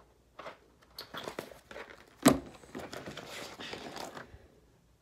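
Paper pages of a lined notebook being flipped and rustled in short bursts, with one sharp knock a little over two seconds in that is louder than the rest. The rustling stops shortly before the end.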